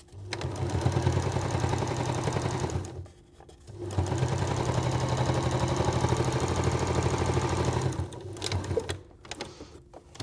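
Janome domestic electric sewing machine running steadily as it top-stitches through oil cloth and cotton, in two runs of about three and four seconds with a brief stop between. It stops about two seconds before the end, leaving a few faint clicks.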